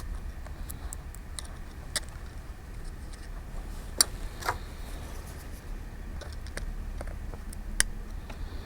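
Scattered small, sharp clicks and taps of a pry tool working the cable connectors off an iPhone 5's logic board, over a steady low hum.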